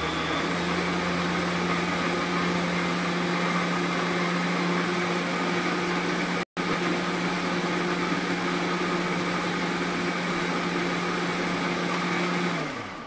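Vitamix blender motor running at a steady high speed, blending a milkshake, with a split-second dropout about halfway. Near the end it is switched off and the pitch falls as the motor winds down.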